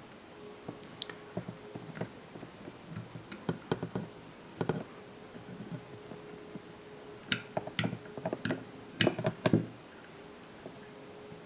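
Scattered light clicks and taps of small metal and polymer pistol parts being handled as the catch is worked into an H&K P30L frame, with a run of sharper clicks about 7 to 9 seconds in.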